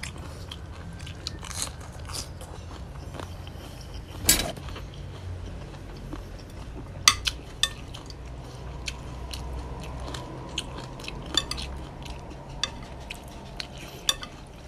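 Close-up eating sounds: chewing and crunching on a spicy chicken-feet salad, with scattered sharp clicks of a utensil against a glass plate.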